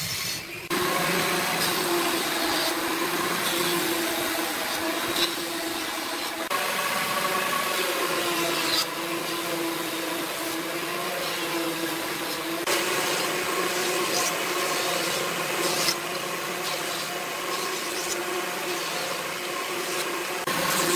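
Thickness planer running with a steady motor hum and hiss while planing narrow wood strips. It starts just under a second in, and its sound changes abruptly a couple of times.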